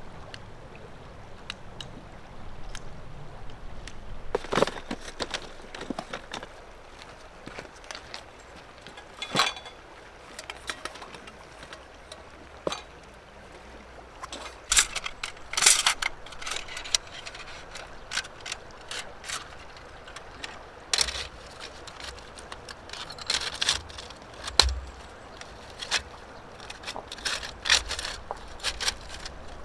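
Irregular clicks, taps and knocks, some close together and some a few seconds apart, over a steady background hiss.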